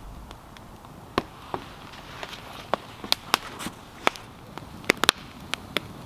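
Campfire of damp twigs and deadfall crackling, with sharp irregular pops and snaps about two a second.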